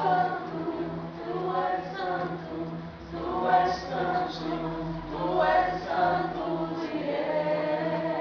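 A group of voices singing together over a steady instrumental backing.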